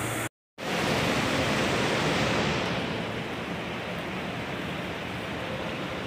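Steady rush and splash of water pouring from small artificial rock fountains into a pond. The sound drops out completely for a moment just after the start, then runs on, easing slightly about halfway through.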